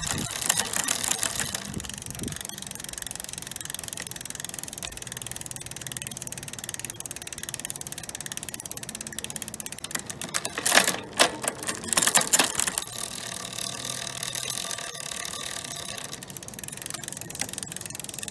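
Bicycle drivetrain running as the cranks are turned: the chain runs through the rear derailleur and over the cassette with a fast, steady ticking. Louder rattling comes in bursts between about ten and thirteen seconds in.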